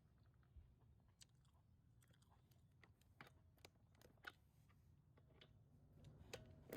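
Near silence with a few faint, scattered clicks, more of them just before the end.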